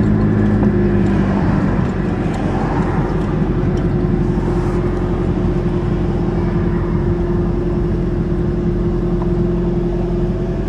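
Turbo Aries wagon driving, heard as a steady engine hum over road rumble.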